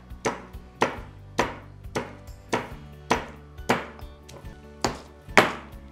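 Stone pestle pounding garlic cloves, green chillies, ajwain, cumin and salt in a heavy stone mortar (khalbatta), crushing them into a coarse thecha. About ten dull strokes, close to two a second.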